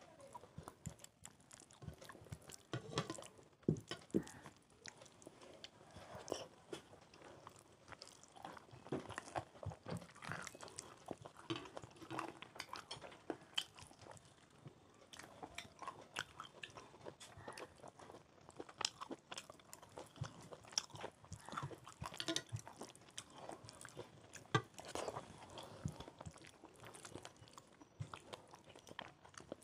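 Two people eating fast: steady chewing and wet mouth smacks on khichdi, chicken kosha and fried brinjal, with frequent short clicks and the odd crunch.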